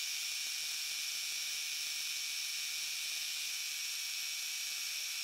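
Milling machine spindle running with a steady high whine and hiss while a 3/8-inch end mill plunges into brass.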